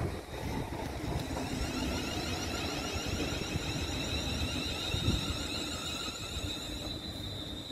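Class 360 Siemens Desiro electric multiple unit pulling away, its traction inverters whining in a set of rising tones over a steady high whistle and the low rumble of the wheels on the rails. There are brief thumps near the start and again about five seconds in.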